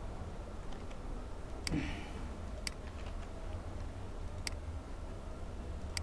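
Computer mouse clicking, four single sharp clicks spaced one to two seconds apart, over a steady low hum.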